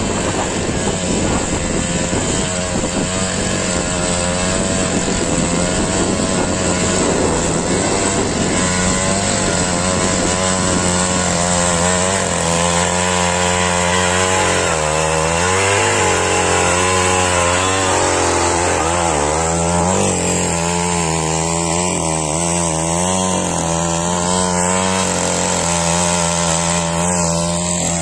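Small engine of a walk-behind mini tiller (power weeder) running steadily while its tines churn the soil between crop rows. From about halfway on, the engine note wavers up and down as the load changes.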